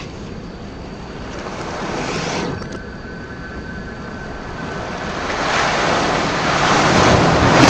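Splashing and rushing river water played in reverse: a hiss of water that builds up and stops abruptly, twice, the second swell louder and ending near the end.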